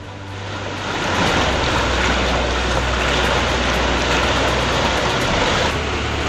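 Surplus water released from a dam rushes and splashes over a causeway in a steady, loud rush of floodwater. The rush builds over the first second and eases slightly near the end.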